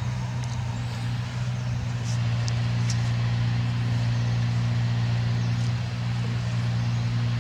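A motor running steadily at an even low pitch, with a few brief, faint high chirps about two to three seconds in.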